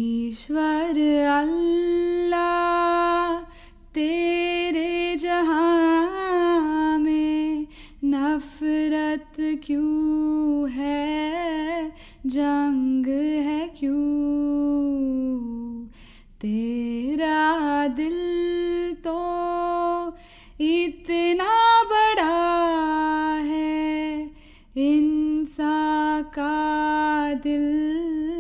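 Solo female voice singing unaccompanied, a wordless melody of long held notes with ornamented slides, with short breaths between phrases.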